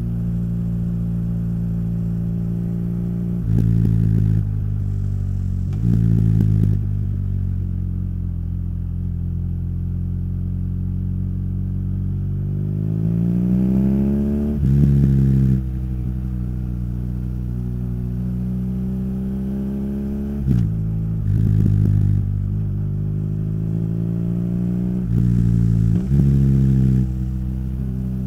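BMW R nineT's boxer-twin engine through its Akrapovic exhaust, ridden on the road. The engine note rises and falls with the throttle, with several short louder stretches where the pitch jumps, as at gear changes. Around the middle there is one long rising pull, then a drop.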